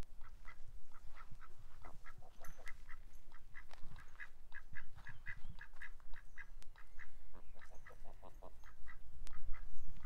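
Ducks quacking: a run of many short, repeated calls, busiest in the middle.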